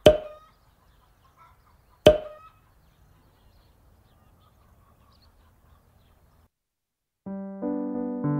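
Two short, sharp pop sound effects about two seconds apart, each dying away within half a second. Piano music begins about seven seconds in.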